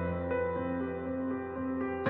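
Background music: slow, sustained chords that change about once a second.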